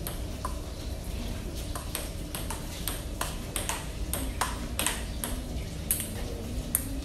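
Table tennis ball clicking back and forth off the table and the rubber-faced paddles in a steady forehand rally, about two to three hits a second.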